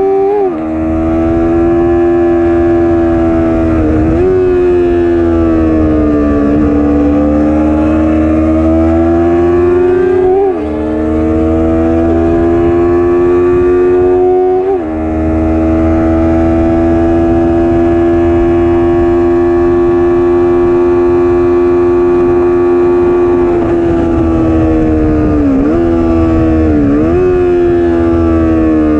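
Stock Yamaha YZF-R3's 321 cc parallel-twin engine under hard acceleration, revving up through the gears with four upshifts in the first half, each a sudden drop in pitch. It then holds a steady high drone for several seconds before slowing, with two downshifts near the end, each a brief dip and jump in revs, over wind noise.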